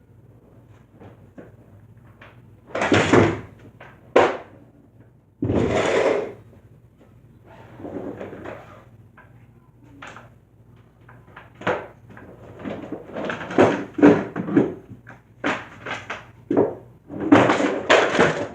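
Skateboard on a homemade indoor skate park: the wheels roll in noisy stretches of about a second, and the board knocks and clatters many times in the second half as a trick fails.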